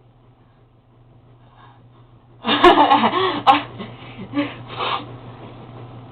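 Sudden burst of laughter about two and a half seconds in, breaking into several short pulses over the next two and a half seconds, then dying away.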